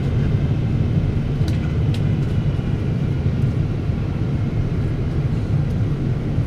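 Steady low rumble of engine and airflow noise heard inside the cabin of a Japan Airlines Boeing 777-300 in flight, with a couple of faint ticks about one and a half and two seconds in.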